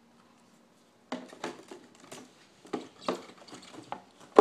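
Handling noise from patent leather sandals being moved about: irregular light knocks, clicks and rubbing, starting about a second in, with the sharpest knock near the end.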